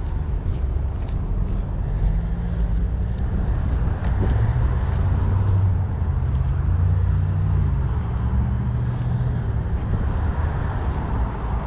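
Steady low rumble of road traffic, with engine hum that slowly rises and falls in pitch as vehicles pass.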